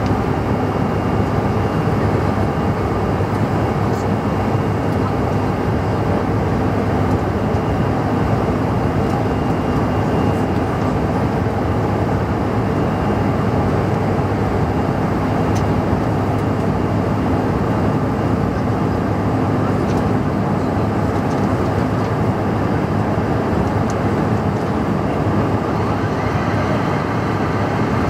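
Steady in-flight cabin noise of a Bombardier CRJ-700 regional jet: the rush of air along the fuselage mixed with the drone of its rear-mounted GE CF34 turbofan engines, with a faint steady hum underneath.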